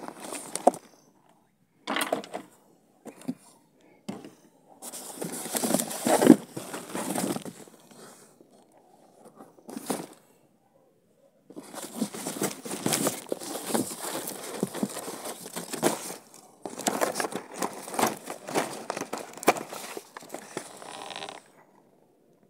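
Cardboard product boxes and packaging being handled and shifted: rustling, crinkling and scraping in several bursts separated by short pauses, with a few light knocks.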